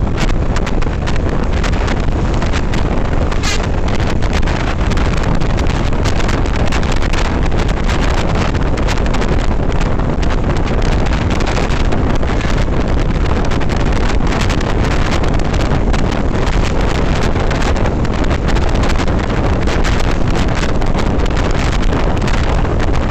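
Steady wind rushing and buffeting over the microphone of a moving motorcycle, heavy in the low end.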